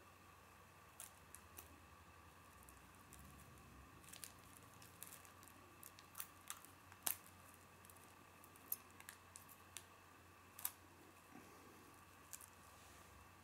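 Small scissors snipping thin, stretchy plastic bag film, with light crinkling of the plastic in the hands: scattered short, sharp clicks, a few louder than the rest, over a faint steady room hum.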